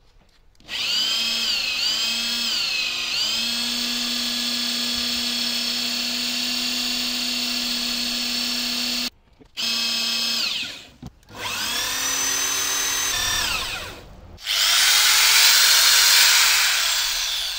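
Alpha Tools electric drill running a drill-driven water pump that is pumping out the pool, a steady motor whine. It cuts out about nine seconds in and is stopped and restarted a few times, running loudest near the end.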